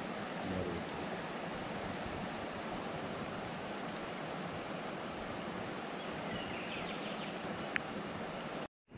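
Steady rush of a swollen, fast-flowing river. The sound cuts out for a moment near the end.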